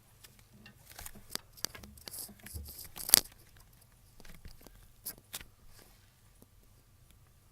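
Irregular clicks and rustling or tearing noises, busiest in the first half, with one sharp loud click about three seconds in and two smaller clicks about two seconds later.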